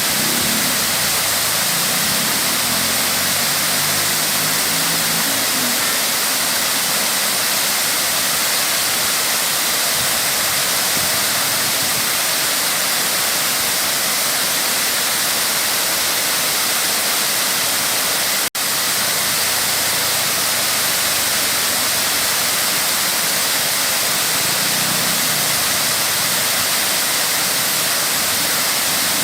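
Waterfall: falling water rushing steadily. The sound drops out for an instant about two-thirds of the way through.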